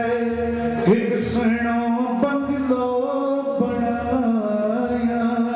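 A man singing in qawwali style, drawing out long held notes that bend up and down in pitch, each phrase breaking off after a second or two.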